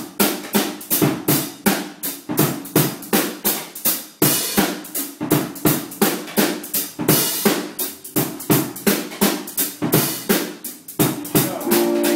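Drum kit playing a groove: kick, snare and hi-hat strokes at about four hits a second, with a cymbal crash twice. A sustained chord comes in just before the end.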